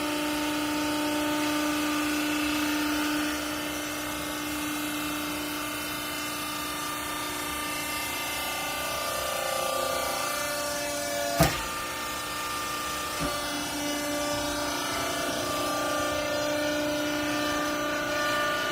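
Hydraulic power unit of a vertical clothes baler running with a steady, whining hum that shifts in pitch partway through. A sharp knock comes about eleven seconds in, and a lighter one about two seconds later.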